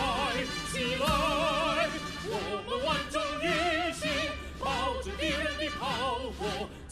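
Music with a trained, opera-style voice singing phrases with heavy vibrato over orchestral accompaniment.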